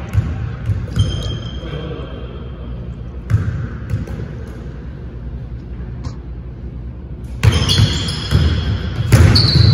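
Basketball bouncing on a hardwood gym floor: scattered bounces, then quick dribbling in the last two seconds or so. Short high squeaks of sneakers on the hardwood come in among the bounces.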